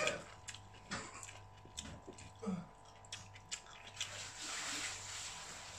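Eating seafood by hand: scattered small clicks and cracks of crab and shrimp shells being broken and pulled apart, with chewing. A short hum of a voice comes at the start, and a rushing hiss rises about four seconds in and lasts over a second.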